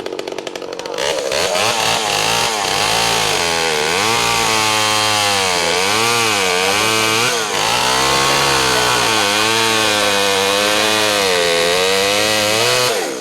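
Two-stroke chainsaw running at high revs, its pitch sagging and recovering again and again as the freshly sharpened chain is put into wood, dipping briefly about halfway and dropping back near the end.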